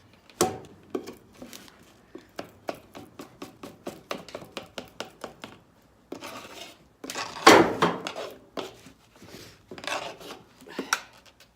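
Scraper scratching dried paint off a glass pane in quick short strokes, several a second, then longer, harder scrapes, the loudest about seven and a half seconds in.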